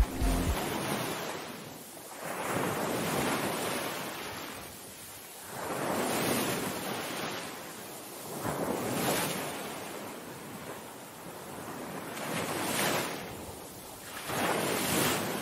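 Lake waves breaking on the shore, a rushing wash that swells and fades again about every three seconds, five times.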